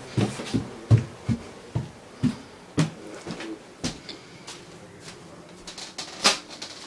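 Footsteps, about two or three a second, then a few sharp knocks and clicks of handling, the loudest near the end.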